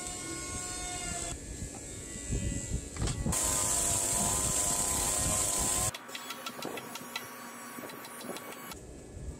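Stihl MS 170 two-stroke chainsaw running, then held at full throttle while cutting into the end of a squared timber beam; the saw cuts off suddenly about six seconds in. A run of sharp knocks follows: a hammer striking a chisel set in the saw cut.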